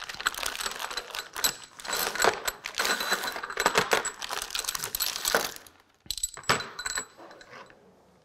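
Plastic bags crinkling and new steel cylinder-head bolts clinking against one another and a metal tray as they are unwrapped and stood upright. The clatter is dense for about five and a half seconds, then a few single clicks follow.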